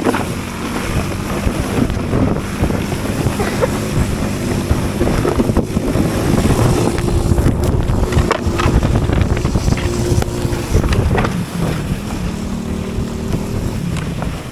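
Small petrol engine running at a steady speed while riding, with wind buffeting the microphone.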